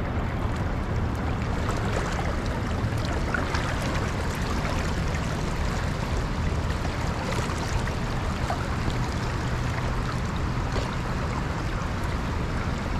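Steady rushing of a river's current flowing over shallow flat rocks, with a low rumble underneath.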